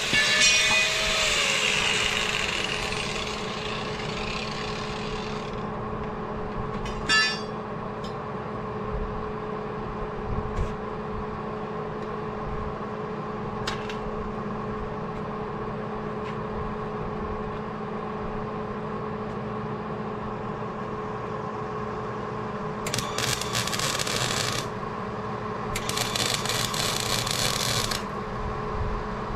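An angle grinder winds down over the first few seconds. A steady machine hum follows with a few clicks. Near the end come two short bursts of crackling welding arc, each about two seconds long, as a bead is laid on the steel channel.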